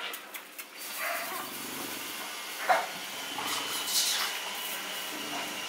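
Five-week-old American Bully puppies whimpering and yipping, a few short cries over a low steady hiss, the sharpest about halfway through.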